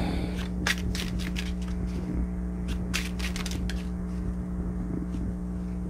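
A deck of paper playing cards being shuffled by hand, short runs of crisp card clicks and flicks, over a steady low hum.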